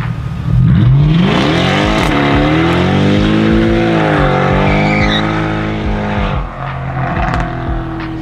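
Modified performance car engine revving hard as the car accelerates: the pitch climbs steeply about half a second in, rises and falls through the middle, then drops to a lower steady note near the end.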